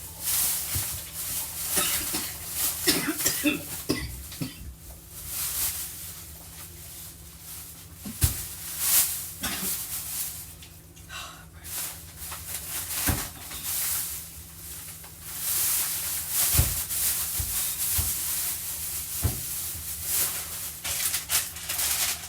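Food packages and containers being handled and moved while a refrigerator is cleared out: rustling and crinkling with several sharp knocks of items set down, over a steady low hum.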